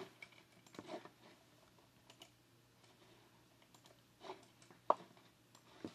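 A handful of faint, scattered computer mouse clicks, the sharpest about five seconds in.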